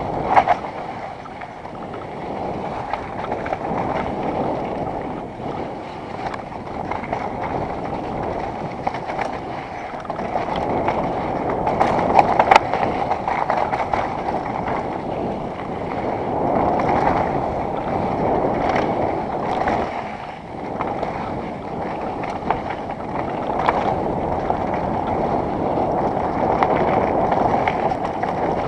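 Wind rushing over the camera microphone and mountain bike tyres rolling over a dry dirt singletrack, swelling and easing with the riding speed. A few sharp knocks from the bike going over bumps cut through it.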